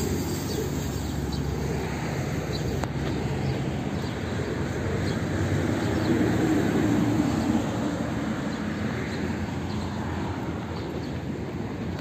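Steady low rumble of outdoor background noise, with a few faint soft ticks over it.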